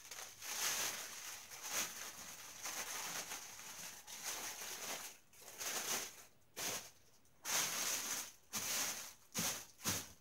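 Thin clear plastic wrapping rustling and crinkling as a replica championship belt is pulled out of it, in irregular bursts with several short pauses in the second half.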